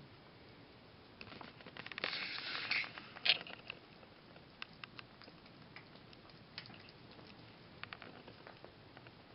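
Sugar gliders eating and shifting about: small soft clicks and rustles, with a denser patch of crackling about two seconds in and one sharper click just after, then sparse light ticks.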